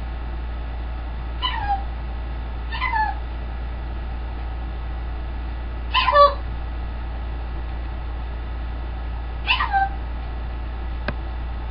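Green-winged macaw giving four short calls a few seconds apart, each sliding down in pitch; the third, about six seconds in, is the loudest. A single sharp click comes near the end.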